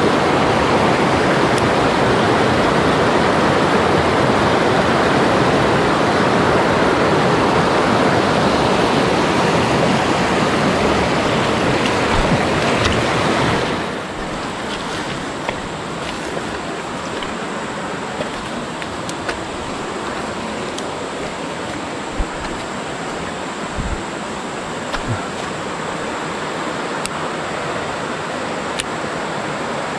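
Mountain stream rushing over rocks in rapids, a steady wash of water. About halfway through it drops suddenly to a quieter flow, with a few light clicks and knocks over it.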